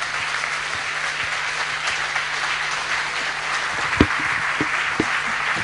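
Audience applauding steadily, with a sharp knock about four seconds in and a couple of fainter ones after it.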